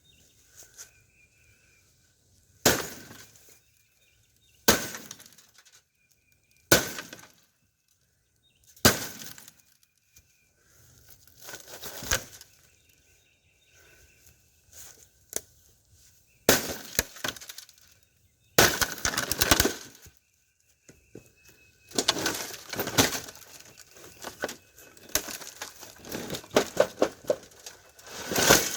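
Sledgehammer blows on a plasma TV's glass panel: four sharp single strikes about two seconds apart, then longer, denser bouts of breaking and shattering glass in the second half.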